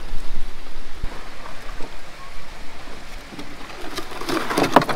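Steady rushing of a mountain stream, with a cluster of louder sharp knocks near the end.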